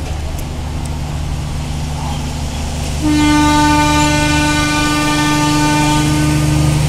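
A diesel locomotive's engine running with a steady low drone, then one long horn blast from about three seconds in, held nearly four seconds, as the train pulls out of the station.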